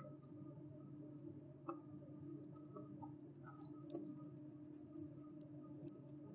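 Small screwdriver turning screws out of a power bank's circuit board: faint scattered clicks and ticks, coming more often about four seconds in, over a steady low hum.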